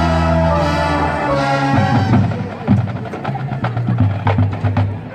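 Marching band playing: the low brass holds a loud chord for about a second and a half, then drum hits sound under shorter low brass notes.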